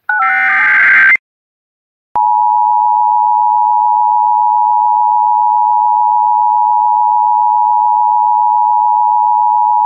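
A short burst of Emergency Alert System digital data tones, then after about a second of silence the EAS attention signal: a loud, steady two-tone alarm held for about eight seconds, which introduces the next alert, a tornado warning.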